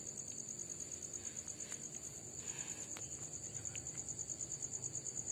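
A cricket chirping in a steady, high-pitched, rapidly pulsing trill, with a few faint clicks.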